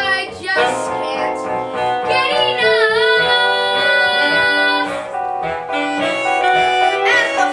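Young voices singing a show tune over instrumental backing, holding one long note about two seconds in until about five seconds in.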